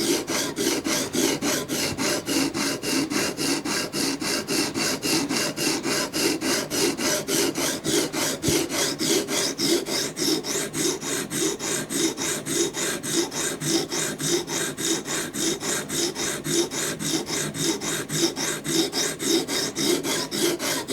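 Coarse 80-grit sharpening stone on a guided clamp sharpener, stroked quickly and evenly back and forth along a steel knife edge at about four strokes a second: the grinding stage of setting a new 22-degree edge on a tanto blade.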